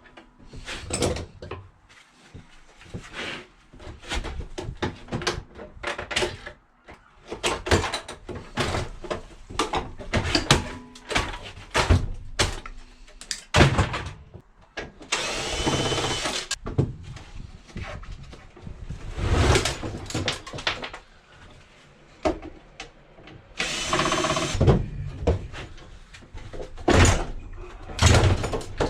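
Irregular metal knocks and clatters of hand tools at work, with a power tool whining in two short runs of about a second each, one near the middle and one about two thirds through.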